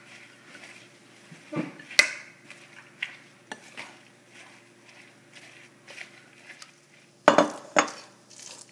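Metal spoon stirring a thick chickpea-flour batter of onions and herbs in a glass bowl, clinking and scraping against the glass in scattered sharp knocks, with two louder clatters near the end.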